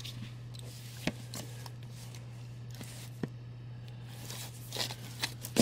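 Comic books being handled and pulled from a cardboard shipping box. Soft paper rustling and sliding, with two light sharp ticks about a second and three seconds in, and busier rustling near the end, all over a low steady hum.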